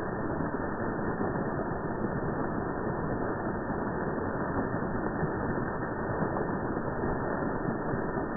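Water jets of a plaza fountain splashing onto stone paving, slowed down with the slow-motion footage, so the splashing turns into a low, steady rushing with no high end.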